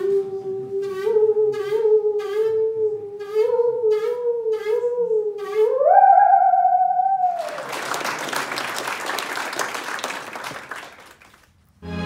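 Musical saw bowed, singing a slow melody with a wide wavering vibrato over faint ticks about twice a second; it rises to a held high note about six seconds in and fades. A few seconds of applause follow.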